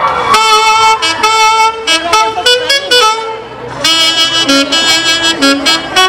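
Saxophone section of a Peruvian orquesta típica playing a lively melody in short, clipped notes. The playing breaks off briefly a little past halfway, then resumes.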